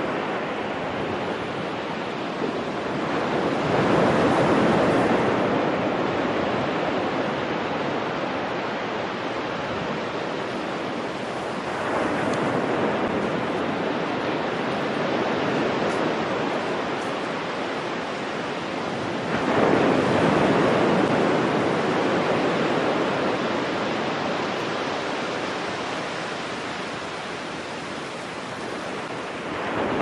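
Ocean surf breaking on a sandy beach: waves crash three times, a few seconds in, near the middle and about two-thirds through, each swelling up and then fading into a long hiss of wash, with another wave breaking at the very end.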